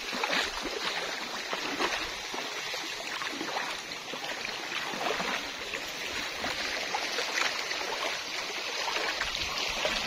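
Shallow river water running steadily, with frequent irregular splashes and sloshes from someone wading knee-deep through the current.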